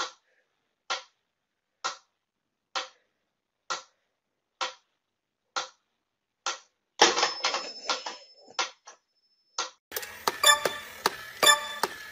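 Pyramid-shaped mechanical metronome ticking slowly and evenly, about once a second. In the last few ticks there is some scuffling and a faint high tone between them. After about ten seconds a denser clatter of clicks and tones takes over.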